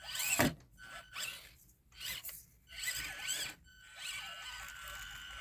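Axial SCX24 Deadbolt 1/24-scale RC crawler's small electric motor and drivetrain whining in short throttle bursts as it works up a small climb, settling into a steadier whine near the end.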